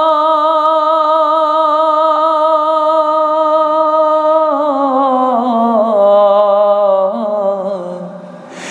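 A man singing a Bangla Islamic gojol, unaccompanied, holding one long note with vibrato for about four seconds. He then slides down through a slow, wavering run that fades near the end.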